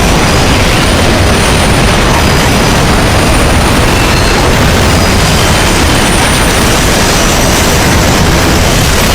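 Train crash sound effect, boosted very loud: an unbroken, steady roar of noise with no separate crashes or impacts standing out.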